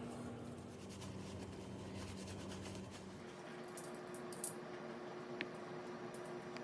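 Faint rubbing and scrubbing on the parts of a Taurus G2C 9mm pistol being cleaned, then a few sharp little clicks of the metal parts being handled about four seconds in, with one more click near the end.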